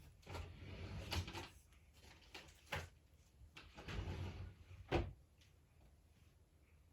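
A person sneezing: noisy build-ups ending in sharp bursts, the last and loudest about five seconds in.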